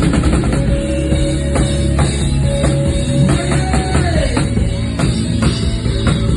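Loud rock-style worship band music with a drum kit. A single held note rides over it and slides down in pitch about four seconds in.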